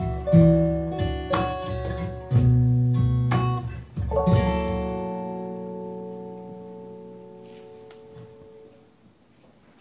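Guitars strumming the closing chords of a song, then a final chord struck about four seconds in and left to ring out, fading away.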